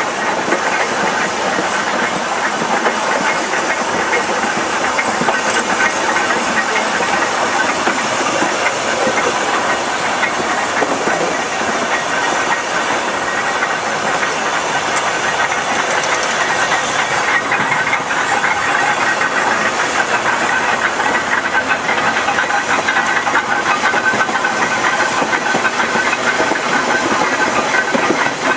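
Manx Electric Railway open crossbench electric tramcar running along the track: a steady rumble and hiss of wheels on rail, mixed with wind over the microphone on the open front platform.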